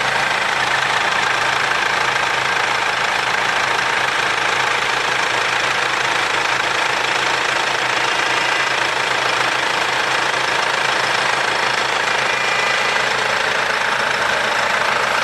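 Mercedes-Benz W204 C-Class engine idling steadily. It is running normally with a freshly replaced timing chain, with no chain rattle.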